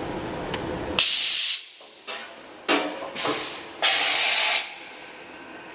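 Hardinge VMC-1000-II vertical machining center's pneumatics releasing five bursts of compressed-air hiss, the first and last the longest, after a second of steady machine hum, as the tool magazine and spindle are worked.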